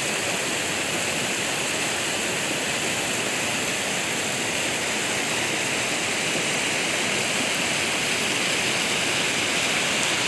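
Fast, muddy rain-fed flash flood rushing down a volcanic river channel: a steady, unbroken rush of turbulent water.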